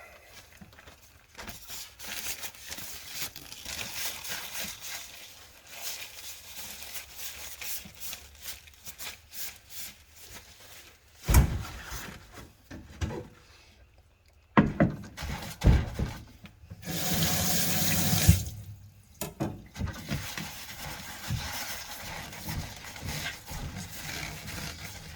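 Water running from a kitchen tap into a sink, with splashing and a few knocks and thuds of handling. The water runs loudest and steadiest for about two seconds past the two-thirds mark.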